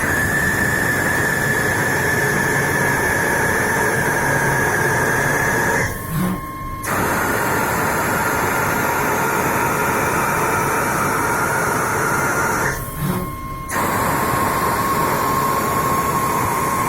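FUDA CNC turning and milling machine running a brass-machining cycle: a steady whine over a loud hiss, in three long runs. Each run breaks off for about a second, about six seconds in and again about thirteen seconds in, then starts again.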